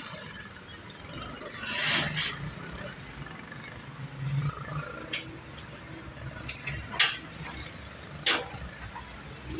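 Street traffic: engines of passing vehicles over a steady low engine rumble, with a swell as one vehicle goes by about two seconds in. A few short sharp knocks come later.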